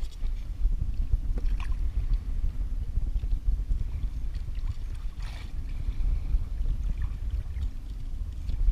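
Wind buffeting the microphone and water lapping against a kayak's hull, a constant uneven low rumble. A few faint scrapes come through, the clearest about a second and a half in and about five seconds in, from a fish being filleted with a knife.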